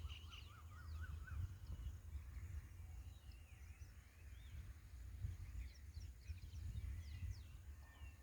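Birds chirping and calling faintly, with short sweeping notes and a quick run of rising notes in the first second or so, over a steady low rumble.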